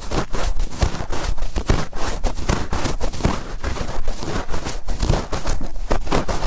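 Cotton swab rubbed firmly and quickly in an ear, heard close up as a dense, irregular run of crackling scrapes, several strokes a second.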